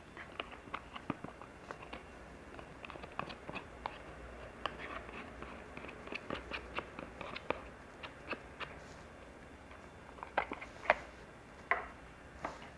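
Irregular light clicks and taps of food being handled and prepared by hand, with a few sharper knocks about ten and a half seconds in and near the end.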